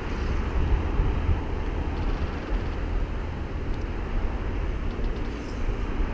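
Wind buffeting a GoPro's microphone: a low rumbling hiss that rises and falls in small gusts, with a few faint ticks.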